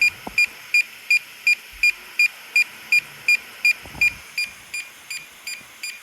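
Rapid, evenly spaced high electronic beeps, about three a second, from the DJI drone and its remote in pairing mode while they search for each other. The beeps grow quieter about two thirds of the way through.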